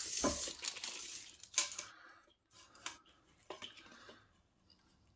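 Handling noise of a steel tape measure and pine battens: a scraping, rattling rush in the first second as the tape is laid along the timber, then three light clicks and taps.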